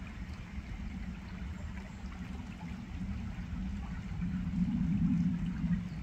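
Shallow river water running over stones, with a steady low hum underneath that grows louder for a couple of seconds about four seconds in.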